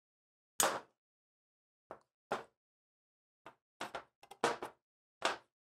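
Light knocks and clicks from hands handling a sheet-metal capacitor box, its wires and the run capacitor: a string of about eight separate taps, the first, about half a second in, the loudest.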